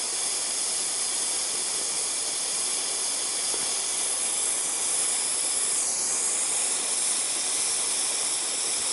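Radioshack butane soldering iron hissing steadily as its gas burns in an open flame at the tip, rather than inside on its catalyst as it is meant to.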